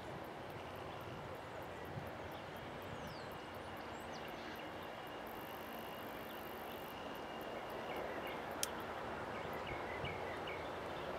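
Twin-engine turboprop airliner on its take-off run and lifting off, heard from a distance as a faint, even rumble that grows slightly louder toward the end. A single sharp click stands out about two-thirds of the way through, and a few short chirps come near the end.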